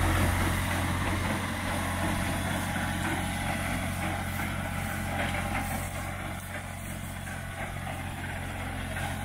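New Holland 3630 tractor's diesel engine running steadily under load as it pulls a working super seeder, a continuous low drone.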